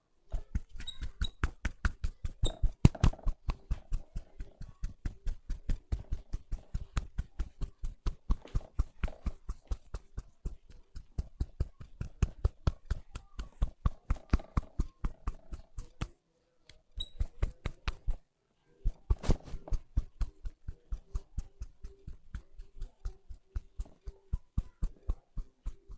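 Hands rhythmically tapping and patting on a head during a head massage, about four quick strikes a second, with two brief pauses about two-thirds of the way through.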